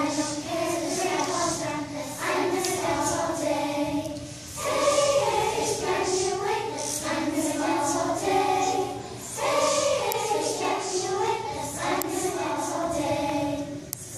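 A children's choir singing together, the phrases breaking briefly about four and nine seconds in.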